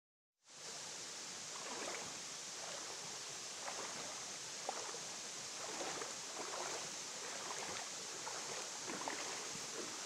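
Shallow creek water babbling over rocks in a riffle: a steady rush dotted with small gurgles and splashes, starting about half a second in.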